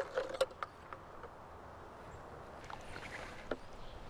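Soapy bubble mixture sloshing and splashing as a hand stirs it in a plastic tub, with a few small sharp knocks at the start, then quieter.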